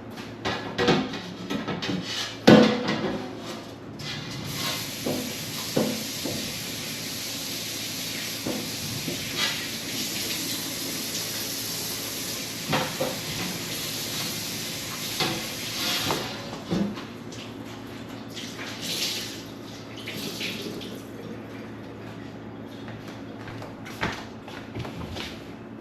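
A kitchen tap running into a sink for about twelve seconds, then shut off, with dishes and containers knocking and clattering throughout.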